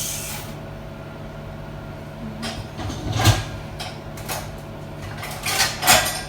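Kitchen clatter: several knocks and scrapes of cookware or cupboard doors, the loudest about three seconds in and again near the end, over a steady low hum.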